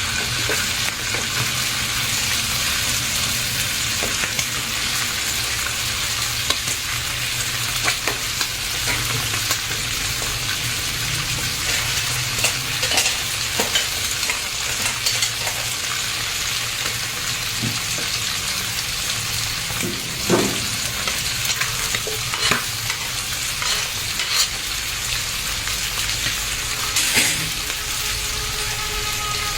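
Rat meat frying in oil in a pan, with a steady sizzle. A utensil stirs it, scraping and knocking against the pan every so often.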